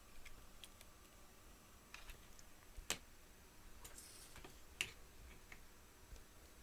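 Faint, scattered clicks and taps of small hard objects being handled, the two loudest about three and five seconds in.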